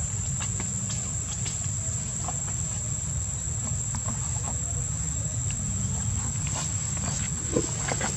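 Steady high-pitched insect drone over a low steady rumble, with scattered faint clicks and one brief louder sound near the end.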